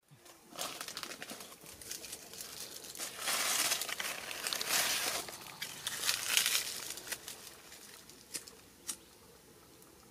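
Dry twigs and tinder crinkling and rustling as hands push them into a pile, loudest in the middle, followed by two sharp clicks near the end.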